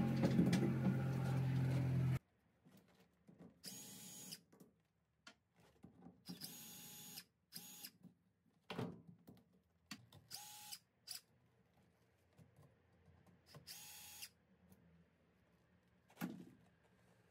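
Power tool running loudly and steadily for about two seconds, stopping abruptly. Then a cordless drill-driver runs in about five short whirring bursts, each under a second, loosening worm-drive hose clamps on an engine's water intake hoses. A few light clicks and knocks come in between.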